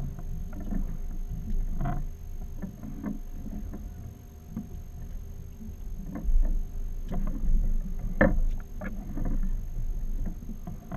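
Small fishing boat adrift, with a low steady rumble of water against the hull and wind, and scattered knocks and clicks from rods, reels and gear as two anglers fight fish.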